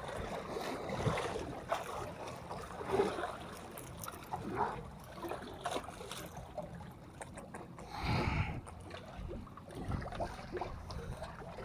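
Seawater lapping and sloshing among concrete breakwater blocks, with scattered knocks and a louder splashing surge about eight seconds in.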